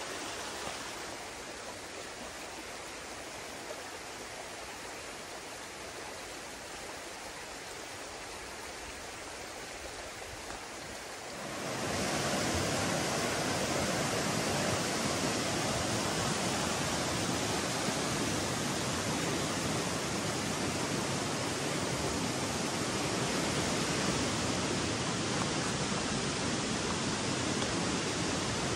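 Mountain creek rushing steadily over rocks; about twelve seconds in it turns abruptly louder and deeper.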